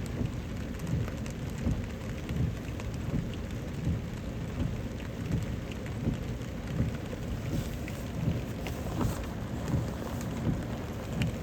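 Steady rain falling on a car, heard from inside with the window cracked open, with many irregular low thumps of drops.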